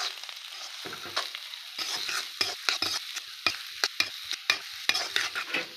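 Steel spatula scraping and tapping against a metal kadhai as boiled potatoes and spices are stirred and fried in a little oil, with a light sizzle underneath. The scrapes and taps come irregularly, several a second, with a few sharper knocks midway.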